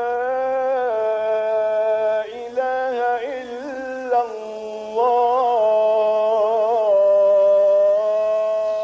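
A man's voice chanting an Islamic prayer, one unaccompanied voice holding long notes with quavering ornaments between them. It is louder in the second half.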